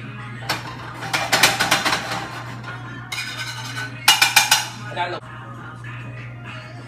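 Background music playing, with two loud bursts of clinking and clatter from a frying pan and utensils being handled on a gas stove. The first burst comes about half a second in and the second around four seconds in.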